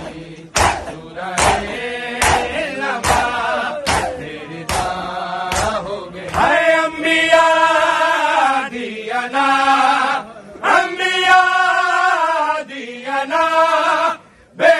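A crowd of mourners beats their chests in unison, a sharp slap about every 0.8 seconds, under group chanting. From about six seconds in, a man's chanted noha recitation takes over, held on long sung lines.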